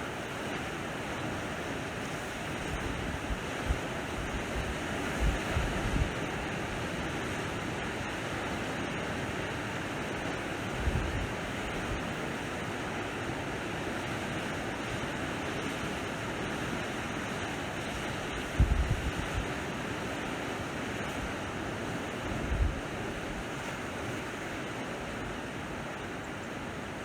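Sea waves washing on the shore in a steady wash, with wind buffeting the microphone in short low rumbles several times.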